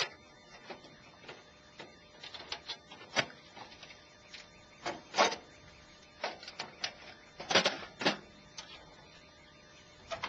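Irregular clicks, knocks and clunks of a camper's storage drawers, cupboard latches and hatch door being handled, played back at double speed. The loudest knocks come about five seconds in and again around seven to eight seconds.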